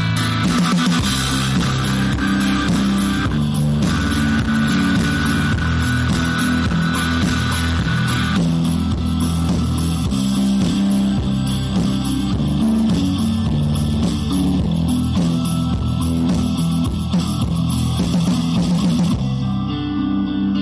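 Instrumental background music, playing continuously; its upper range thins out about eight seconds in.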